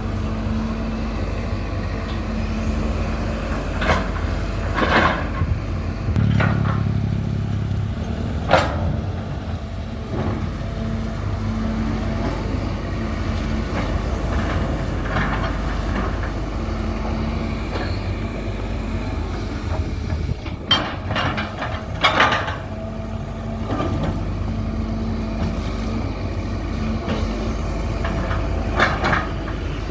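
Hydraulic excavator's diesel engine running steadily under work, its note shifting briefly about six seconds in, with a few short sharp clanks or squeaks from the working arm scattered through.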